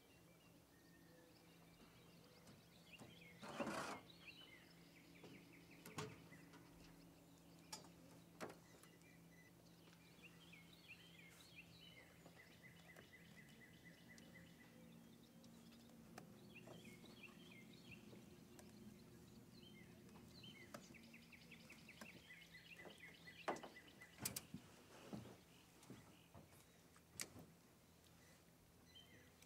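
Faint lakeside evening ambience: runs of quick, high, repeated chirping calls over a low steady hum, with a few sharp knocks, the loudest about four seconds in and two close together around twenty-four seconds.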